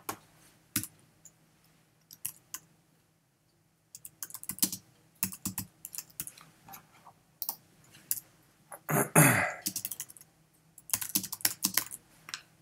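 Typing on a computer keyboard: keystrokes in short runs with pauses as a headline is typed in. About nine seconds in there is one louder, longer noise.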